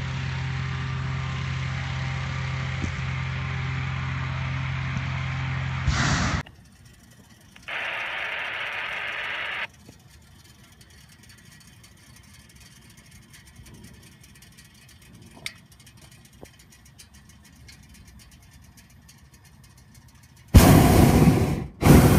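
Engine-driven fan blowing air into a hot-air balloon envelope during inflation, a steady drone for the first six seconds. It then cuts to a much quieter stretch, with a two-second hiss about eight seconds in and two loud rushes near the end.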